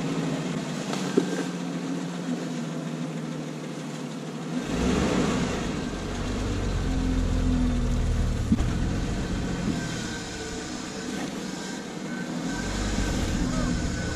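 A Jeep's engine running at low revs on an off-road trail. A deep rumble comes in about five seconds in and falls away about twelve seconds in, and there are a couple of brief knocks along the way.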